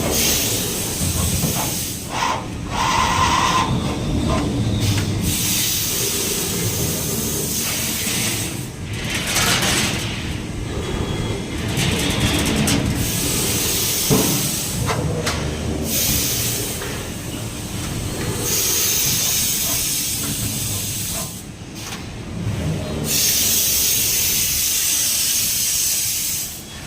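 Yawei CNC sheet-metal folding machine working through an automatic folding cycle: a steady mechanical rumble with hissing that comes and goes in stretches of a few seconds.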